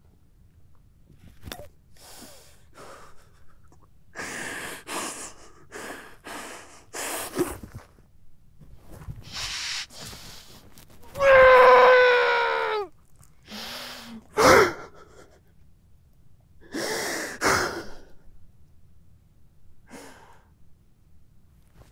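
A man sobbing, drawing ragged, gasping breaths, with one loud drawn-out wail falling in pitch about halfway through.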